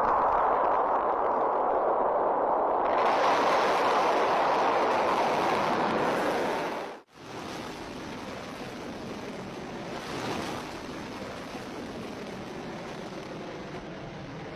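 Ballistic missile's rocket motor at launch: a loud, steady rushing noise that breaks off abruptly about seven seconds in, followed by a quieter, steady rush as the missile climbs.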